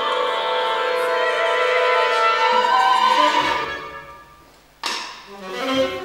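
Orchestral music: sustained bowed strings that fade out about four seconds in, then a sharp percussive strike that rings away.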